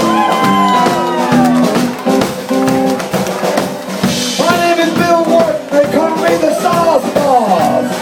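Live blues band playing: a harmonica plays bending, sliding notes over a drum kit and steady low notes.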